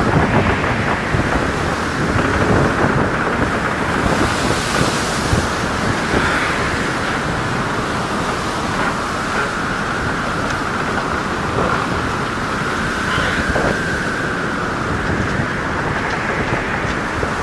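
Snowstorm wind blowing hard against the microphone: a steady, loud rushing noise with no breaks.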